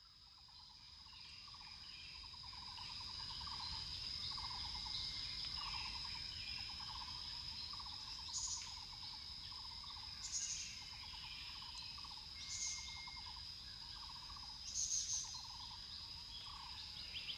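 A nature-sound background track fading in: repeated chirping trills over a steady high-pitched tone, with four sharper, higher chirps in the second half.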